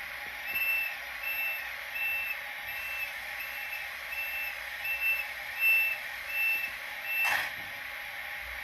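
Sound decoder of a Minitrix N-scale ICE1 model train playing a high, even beep repeated about twice a second through its small speaker, over a steady hiss. A short, sharp burst of hiss comes near the end.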